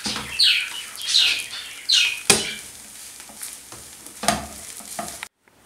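Wooden spatula stirring and scraping mashed potato stuffing around a non-stick frying pan, a quick scraping stroke every half second or so. There is one sharp knock of the spatula on the pan a little over two seconds in. After that the strokes grow fainter and sparser, and the sound cuts off suddenly near the end.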